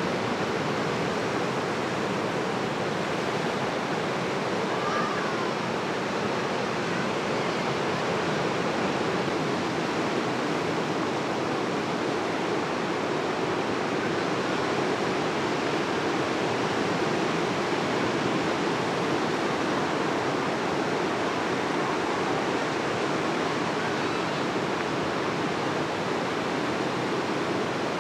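Steady wash of ocean surf on the beach, a continuous even rush of water.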